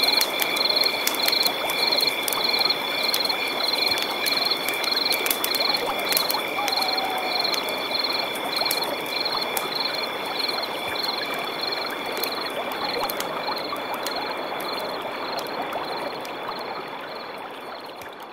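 Night forest ambience by a river: a stream running, with a steady high trilling and a high chirp repeating about twice a second from the night chorus of insects and frogs. It fades out near the end.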